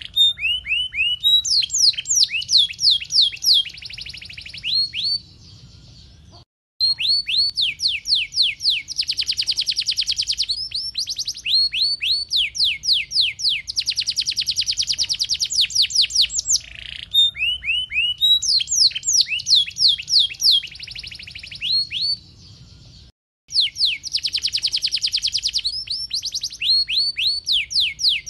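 Domestic canary singing a long, continuous song. Each phrase is a run of fast, repeated downward-sweeping whistled notes that runs into rapid trills and rolls. The song cuts out completely for a moment twice, about six seconds in and again near the end.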